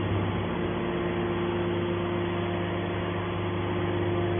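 Scrap metal baler running with a steady mechanical drone made of several constant low tones, with no crushing or impact sounds.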